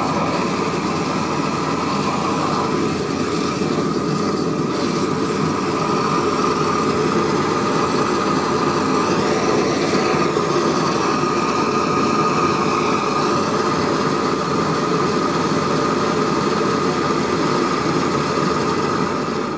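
Propane weed-burner torch burning with a loud, steady rushing noise and a faint steady whistle.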